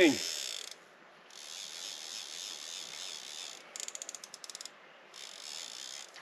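A Hardy fly reel's click-and-pawl check singing in spurts as a hooked trout takes line. It breaks into a run of separate clicks a little past the middle.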